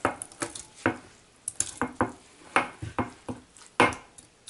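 Spatula scraping and knocking against a glass bowl and a steel pot as thick, wet soaked idli rava is scooped into urad dal batter, with soft wet plops. Irregular sharp clicks, the loudest near the end.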